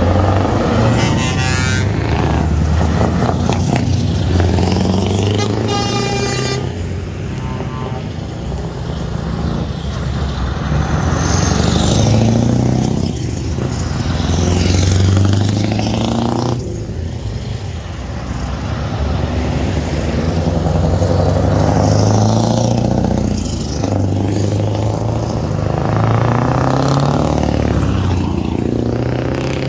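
A procession of heavy diesel tractor units, Scanias among them, driving past one after another, each engine note swelling and fading as it goes by. Air horn blasts sound near the start and again about six seconds in.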